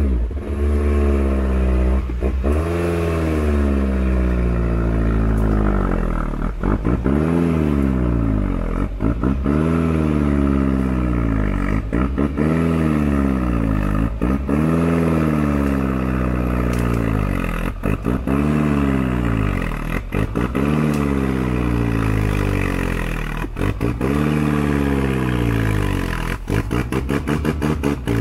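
Off-road vehicle's engine revved up and down over and over, rising and falling in pitch about once every two seconds, with clattering knocks throughout and more of them near the end.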